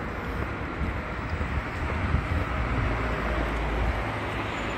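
Steady street traffic noise, mostly a low rumble of vehicles on the road alongside.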